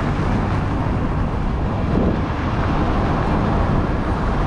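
Steady rumble of a car driving along a road: engine and tyre noise.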